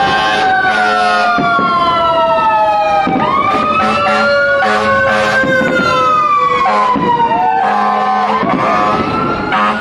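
Several emergency-vehicle sirens wailing at once, their overlapping tones each rising quickly and then sliding slowly down. Firework bangs and crackles go off among them every second or so.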